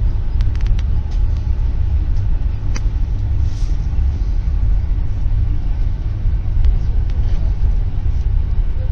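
Steady low rumble inside a passenger train carriage running along the line, with a few faint clicks in the first three seconds.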